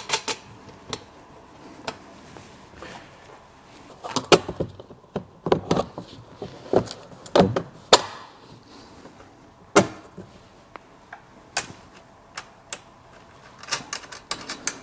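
Irregular knocks, clicks and light clatter as a wheelbarrow drum and its metal frame are handled and bolts are fitted by hand. The knocks come thickest in the middle stretch, with a sharp single one a little later and another flurry near the end.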